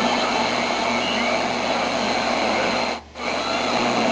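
Shortwave static hissing from a portable 4-band radio's speaker, with faint steady tones in the noise. It cuts out briefly about three seconds in, then comes back.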